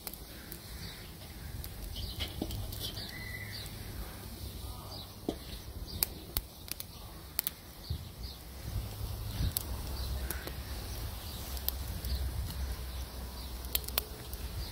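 Small twig-and-stick wood fire in a metal fire pit crackling, with sharp pops scattered through it, the loudest about six seconds in. A steady low rumble underneath and faint bird chirps.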